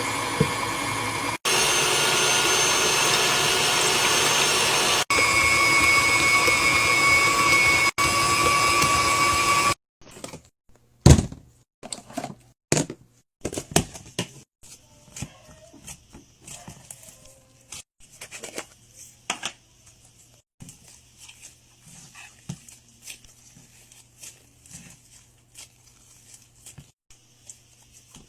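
A small electric motor, like a power tool or kitchen appliance, running steadily with a whine, broken by a few short cuts; it stops abruptly about ten seconds in. After that come scattered soft clicks and handling sounds.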